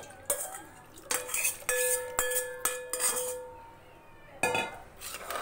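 Steel spoon scraping and clinking against a metal pan and an aluminium pressure cooker while liquid is poured and stirred. Near the middle, one knock sets a pot ringing on a clear tone for about two seconds.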